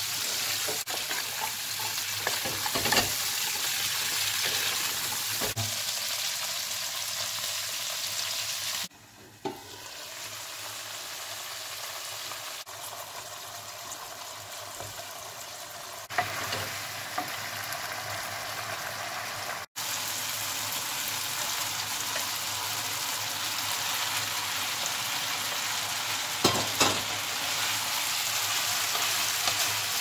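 Vegetables sizzling in oil in a frying pan as a wooden spoon stirs them, the spoon knocking against the pan now and then. The sizzle softens to a quieter hiss for several seconds in the middle, with two brief breaks.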